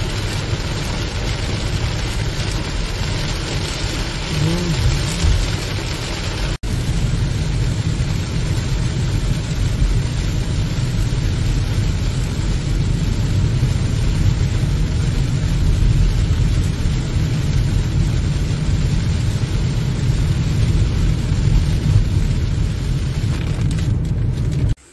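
Heavy rain on a moving car and its tyres on the wet road, heard from inside the cabin: a dense, steady noise with a strong low rumble. The sound cuts out for an instant about six and a half seconds in.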